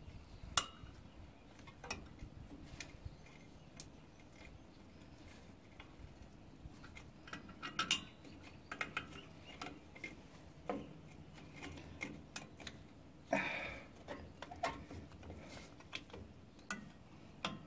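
Irregular small metallic clicks and clinks from pliers and steel brake springs and retainers being worked onto the shoes of a drum brake, with a louder bout of clinking about 13 seconds in.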